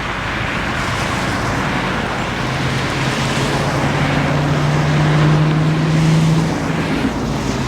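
A lash-up of BNSF diesel-electric freight locomotives passing close by. A low steady engine drone swells from about two seconds in, is loudest after about five seconds and fades near the end, over a constant rushing noise.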